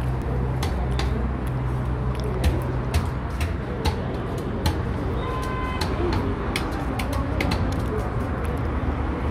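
Large knife chopping fish on a wooden log chopping block: sharp, irregular chops about two or three a second, over steady street noise and a low hum. A brief high beep comes about five seconds in.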